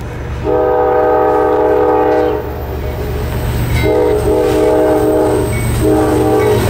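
Air horn of an approaching CSX diesel freight locomotive sounding a chord in several blasts: a long blast about half a second in, a short blast followed by a longer one around the fourth second, and another near the end. The locomotive's engine rumbles steadily underneath.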